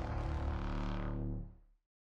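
Logo-sting music with held tones fading out and ending about one and a half seconds in.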